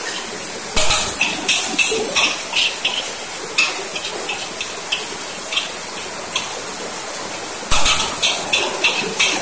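Metal spatula clanking and scraping in a wok while stir-frying rice, over a steady hiss of sizzling and the burner. The strikes come at an uneven pace, with heavier knocks about a second in and near the end.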